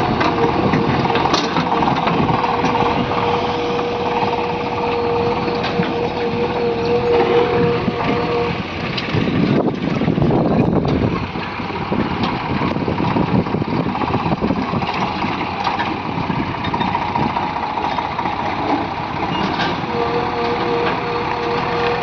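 JCB excavator's diesel engine running under work, with a steady whine over it that stops about a third of the way in and returns near the end, and a louder, rougher stretch about halfway through.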